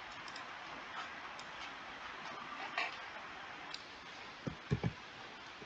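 Faint steady hiss broken by a few scattered light clicks, then three soft low thumps in quick succession near the end.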